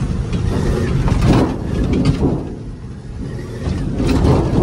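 Turbo-diesel pickup heard from inside its cab while driving a bumpy, icy trail: the engine runs under a steady rumble of road noise and cab rattle, which swells about a second in and again near the end.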